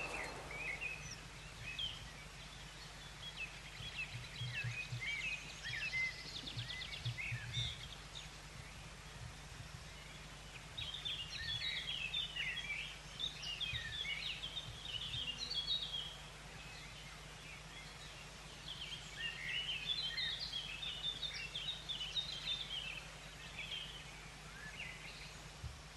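Small birds singing in woodland: quick chirping and twittering phrases, busiest in two spells about eleven and nineteen seconds in. A faint steady hum runs underneath.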